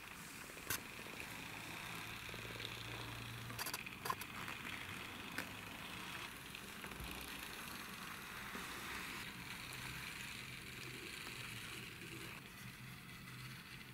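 Small die-cast McLaren P1 model car rolled by hand across a wooden floor: a faint, steady rolling whir of its wheels, with a few light clicks near the start and around four seconds in.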